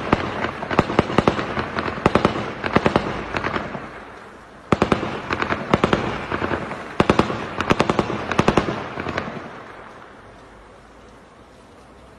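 Two long volleys of rapid sharp bangs, several a second, each dying away in a long rolling echo. The first runs through the opening four seconds, the second starts about five seconds in and fades out near ten seconds.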